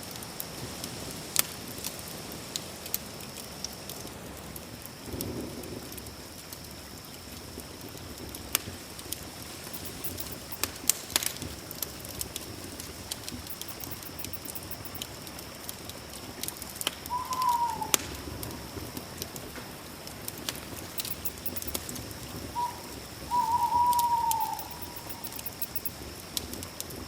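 Campfire crackling, with scattered sharp pops over a steady high drone of night insects. A short falling call sounds about two-thirds of the way in, and a longer one near the end.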